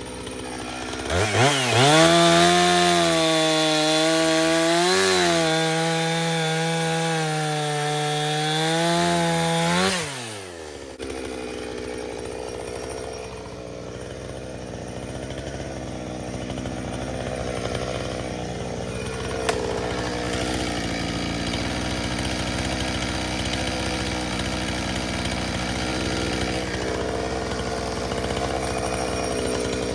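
Chainsaw revved hard about a second in and held at full throttle with a high, steady engine note for roughly nine seconds. The throttle is then released and the engine drops back to a low, rougher idle.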